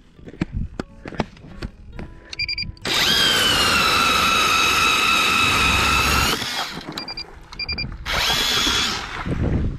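Power ice auger drilling through the ice: a motor whine that climbs as it spins up, runs steadily for about three seconds, then stops. A second, shorter burst follows near the end.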